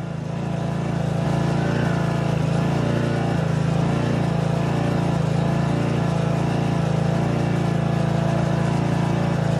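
Gasoline-powered Kärcher pressure washer running steadily, its small engine humming at a constant speed, coming up in level over the first second.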